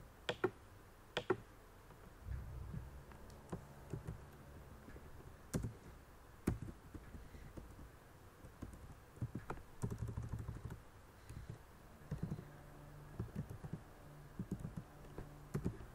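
Computer mouse clicks and typing on a computer keyboard: a few separate clicks in the first seconds and around the middle, then runs of quick keystrokes through the second half.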